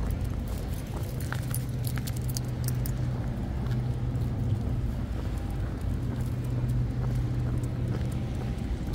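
A distant engine's low, steady drone that fades out near the end, with a few light metallic jingles in the first seconds.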